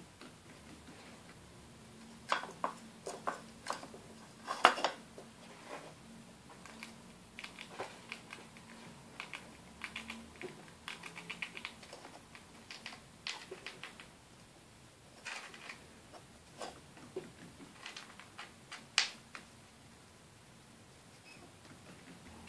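Light, irregular clicks and clacks of plastic lids and pieces on a wooden treat-puzzle board as a rat noses and pushes them to get at food pellets, with a few louder knocks, the loudest about five seconds in.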